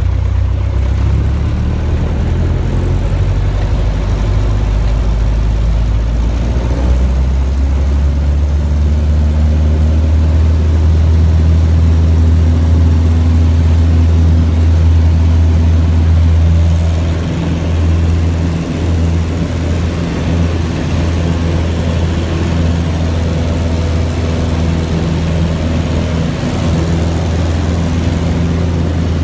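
Bellanca Scout tow plane's piston engine and propeller heard from inside the cockpit during takeoff: a loud, steady drone that rises in pitch about seven seconds in as power comes up, then eases slightly after about seventeen seconds once airborne.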